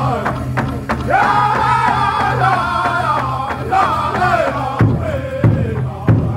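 Powwow drum group singing a chicken dance song in high-pitched voices over a steady beat on a large powwow drum struck with padded drumsticks. About five seconds in the voices break off, leaving the drumbeats alone at about one and a half beats a second.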